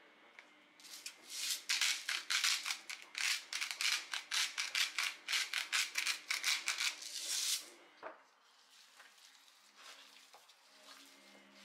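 Dry spice being shaken from a shaker or jar over raw chicken wings: a fast, even rattle of about five or six shakes a second, starting about a second in and stopping about seven and a half seconds in.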